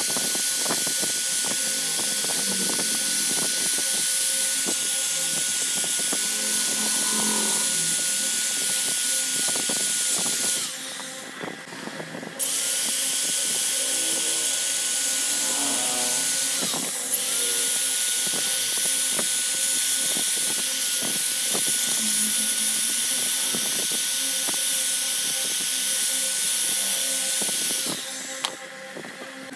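Tecnico electric drill spinning a wire brush against a motorcycle cylinder head and cylinder barrel, scrubbing off caked carbon, with a steady high whine and scratchy chatter of wire on metal. It stops after about ten seconds, starts again about two seconds later, dips briefly under load, and stops near the end.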